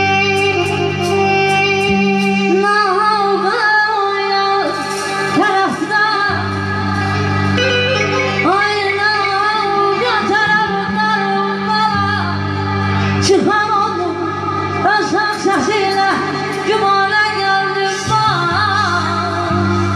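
Woman singing live into a microphone, a winding, ornamented melody over steady keyboard accompaniment.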